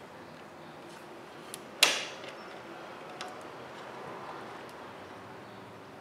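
Hands fitting the blower motor's plastic bracket and starting its screws by hand: a few light clicks and one sharp knock about two seconds in, over a faint steady background hum.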